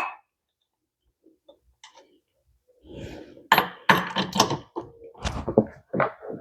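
Sharp metallic clanks and knocks of hand tools being worked on a golf cart wheel: one at the start, then a quick run of several from about three and a half seconds in.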